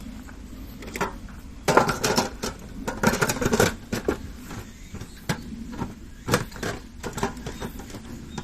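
Hard objects clattering and knocking as they are handled: a run of quick clinks and knocks about two seconds in, then scattered single knocks.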